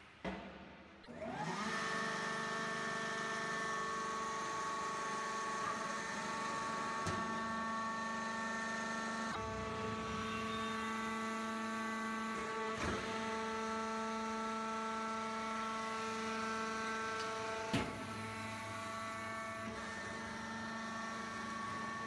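Electric motor and hydraulic pump of a vertical baler's power unit starting about a second in with a rising whine, then running with a steady whine. Its tone shifts partway through, with a few sharp knocks.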